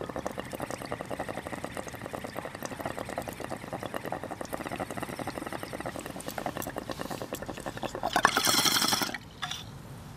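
Glass bong's water bubbling in a rapid, steady stream as a hit is drawn through a burning bowl of hash, ending with a louder, harsher rush of bubbling about eight seconds in that stops a second later.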